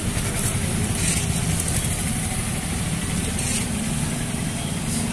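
Steady rumble of street traffic, with motor vehicles running past.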